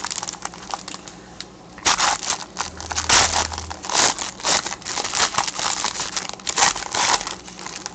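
Foil wrapper being crumpled and torn open by gloved hands: quieter at first, then dense crinkling from about two seconds in.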